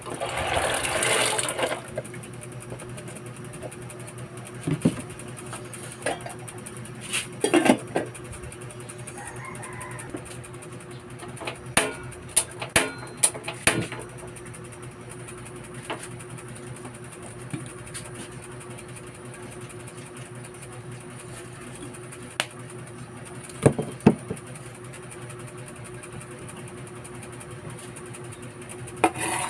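Soaked mung beans poured from a plastic container into a pot of water, a splashing pour lasting about two seconds. Then a steady low hum, with a few scattered clicks and knocks of cookware on the stove.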